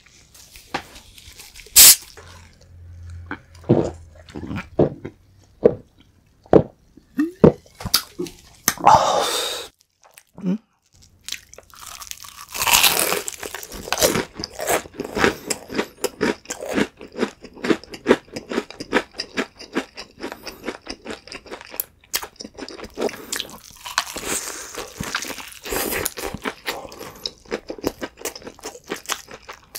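Crispy-coated fried chicken being bitten into and chewed close to the microphone, with rapid dense crunching from about the middle onward. Before that there are a few separate sharp clicks and handling noises.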